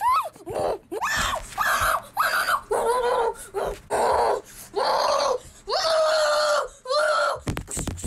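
A person's voice making a string of short screeching and wailing cries, sliding up and down in pitch, play-acting plush toy characters in a struggle. Near the end come rapid knocks and rustles as the toys are handled against the microphone.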